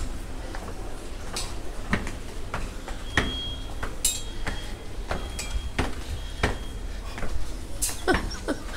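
Footsteps climbing a stairwell, a steady tread of a little under two steps a second, with a few short high squeaks in the middle.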